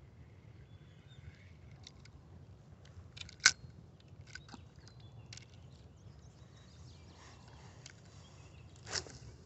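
Sharp clicks and knocks from handling a fishing rod close to the microphone. The loudest comes about three and a half seconds in and another near the end, over a low steady rumble.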